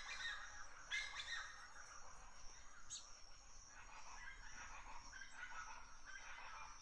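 Birds calling: short honking calls near the start and about a second in, a sharp high chirp a few seconds in, then fainter chirping calls.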